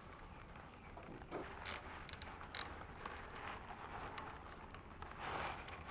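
Faint metal clicks and light clinking of a small hand tool and bolts while an ignition coil is fitted beside the engine's flywheel. A quick cluster of sharp clicks comes about two seconds in.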